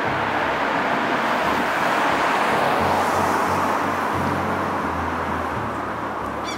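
A road vehicle passing on the street, its tyre and engine noise swelling to a peak about three seconds in and then fading away.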